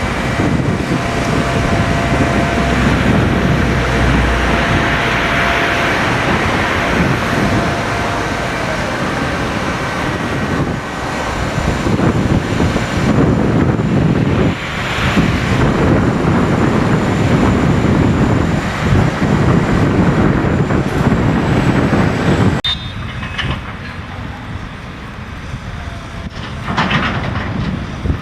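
Heavy construction machinery working: a diesel engine running under continuous metallic clanking and rattling. The noise drops suddenly about three-quarters of the way through, leaving quieter rattling.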